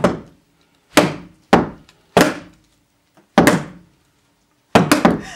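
Heavy blows of a stick beating down on something soft, each a sharp thud. They come singly about a second apart, then in a quick flurry of three near the end.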